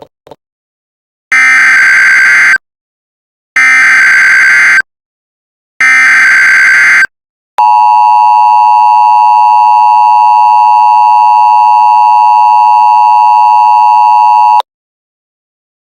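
Emergency Alert System header: three bursts of SAME digital data tones, each about a second long, then the steady two-tone EAS attention signal held for about seven seconds and cut off abruptly.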